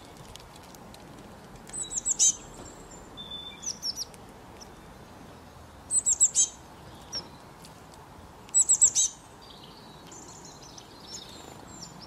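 Small songbird calling: three short bursts of rapid, high, downward-sweeping chirps about two, six and nine seconds in, with fainter twittering near the end, over a steady background hiss.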